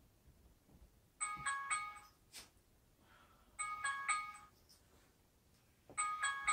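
Phone alarm sounding: a short electronic jingle of a few bright notes, repeating three times about every two and a half seconds.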